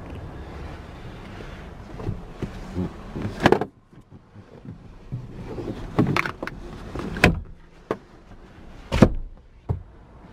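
Steady wind noise, cut off by a loud thump about three and a half seconds in, like a car door shutting. It is followed by a string of sharp clunks and clicks as the 2005 Ford Fiesta ST's doors and fittings are worked.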